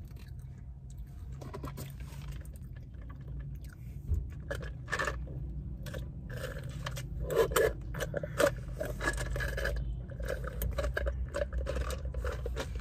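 Close-up chewing and crunching of fast food, with irregular crackly clicks and scrapes that get busier after about four seconds.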